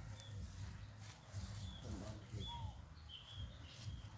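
Scattered short, high chirps and squeaks from small animals, with one lower, arching call about two and a half seconds in, over a steady low rumble.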